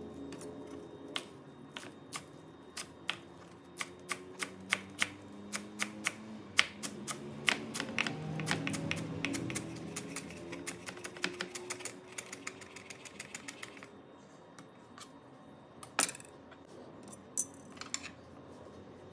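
Santoku knife chopping fresh cilantro on a wooden cutting board: a run of sharp knocks of the blade on the board, a few spaced strokes at first, then quick regular chopping. After that come only a few scattered knocks and one single louder knock.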